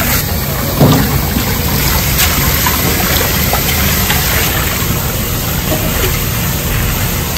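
Tap water running hard into a stainless steel sink and splashing over soybean sprouts as they are rinsed by hand, with a short knock about a second in.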